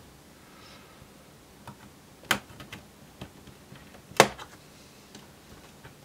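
Plastic clips of a Dell Inspiron 15 3501 laptop's base panel snapping free as a plastic pry tool works along the back edge: a few light ticks and two sharp clicks about two seconds apart.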